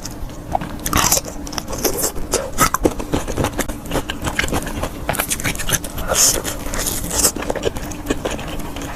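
Close-miked eating: biting into and chewing crunchy fried skewers, a dense run of irregular crunches and clicks with a few brief hissy bursts.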